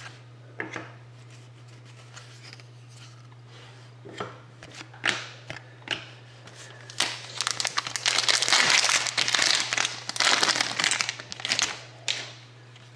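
Crinkling wrapper and rustling as trading cards are handled: scattered sharp rustles at first, then about five seconds of dense crinkling. A steady low electrical hum runs underneath.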